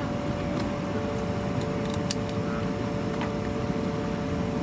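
Steady drone of a Boeing 737-400 cabin's air system on the ground, with a few faint steady tones in it and a few small clicks.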